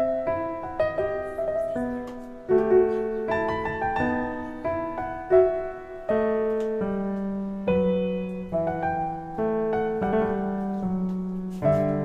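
Solo piano music: single notes and chords struck one after another, each ringing and fading, over a lower bass line.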